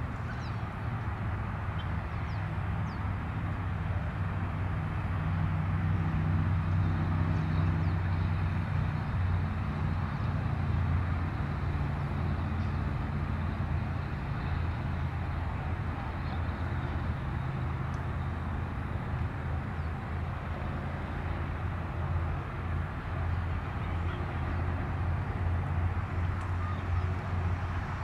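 Twin General Electric CF6 turbofans of an Airbus A300-600ST Beluga running on the runway at a distance: a steady low jet rumble that swells a little a few seconds in. Faint high chirps sit above it.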